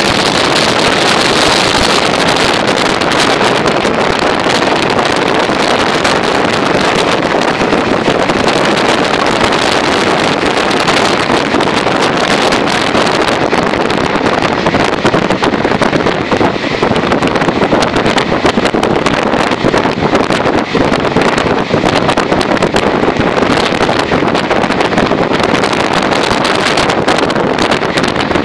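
Moving passenger train heard from an open carriage window: wind rushing and buffeting the microphone over the steady rumble of the wheels on the track. The high hiss thins out about halfway through.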